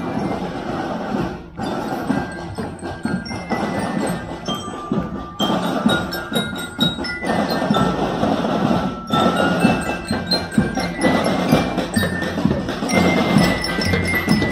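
Parade marching band playing: bell lyres (glockenspiel) ring out a tune over drums and percussion, with a deeper bass part coming in about halfway.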